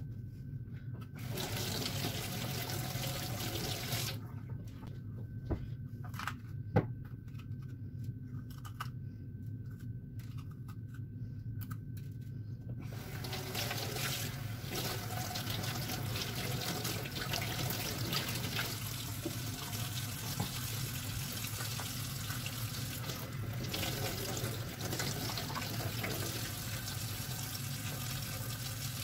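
Kitchen tap running into a stainless steel sink as a bell pepper is rinsed under it by hand. The flow breaks off for several seconds near the start, with a couple of light knocks, then runs steadily again.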